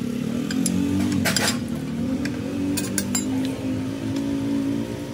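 Metal parts and tools clinking a few times, mostly in a cluster about a second in and again about three seconds in, over the steady hum of a running motor.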